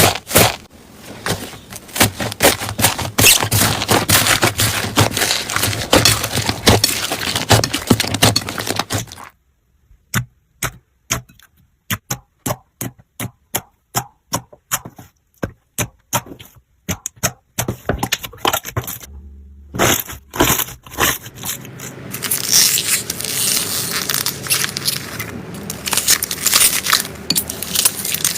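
Slime being pressed and squeezed by hand, making dense crackling and popping. About a third of the way in, the crackling thins to single sharp pops, several a second with silence between, before it turns dense again near the end.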